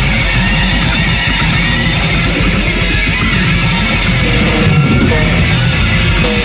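Loud heavy rock music with distorted electric guitar.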